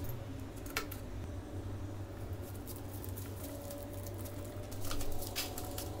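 Small metal hasp latch being handled and held against a wooden cage door: light rustling with a sharp click about a second in and a few clicks near the end, over a steady low hum.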